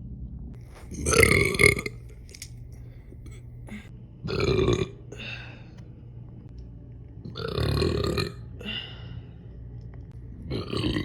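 A woman burping loudly four times, about three seconds apart. The first, about a second in, is the loudest and longest, and the last comes near the end.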